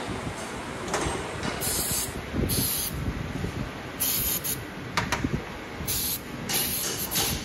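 Aerosol cleaner sprayed onto a motorcycle's front disc brake parts in about six short hissing bursts, over low workshop clatter.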